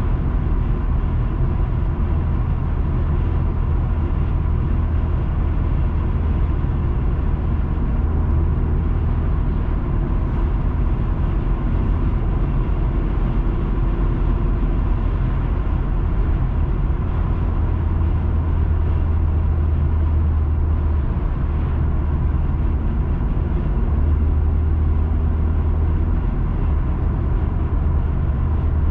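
Steady low rumble of a car's engine and tyres on the road while driving, heard through a dashcam, with a thin steady high tone running above it.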